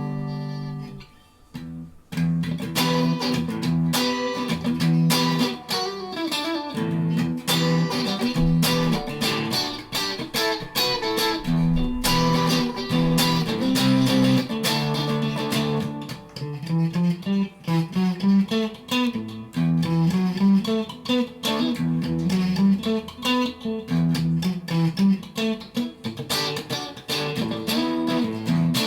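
PRS Silver Sky electric guitar played through a Mesa Triple Crown tube amp: a held chord rings out and fades, and after a short pause about two seconds in comes steady picked playing, chords mixed with single-note lines.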